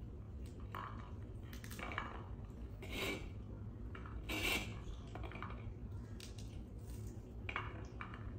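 Light clinks and taps on a small ceramic plate as pomegranate seeds are picked out and dropped onto it: a handful of short, scattered sounds, the two loudest near the middle, over a low steady hum.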